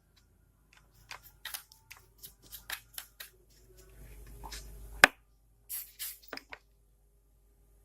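Small laptop parts being handled by hand: a run of light plastic clicks and taps, with one sharp snap about five seconds in.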